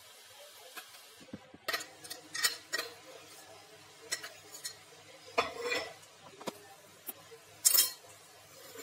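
Steel spoon scraping and clinking inside a stainless-steel mixer-grinder jar as ground urad dal paste is scraped out into a steel bowl of flour: a string of irregular clinks and short scrapes that begins about a second and a half in, the loudest clink near the end.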